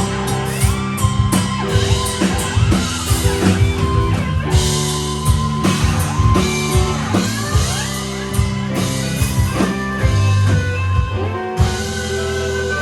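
Live rock band playing with distorted electric guitars, bass and a drum kit. About eleven and a half seconds in, the drums stop and a held chord rings on.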